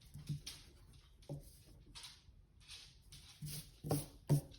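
Faint, irregular strokes of pencil and eraser rubbing on paper while a drawing is rounded off: several short swishes, a few of them louder near the end.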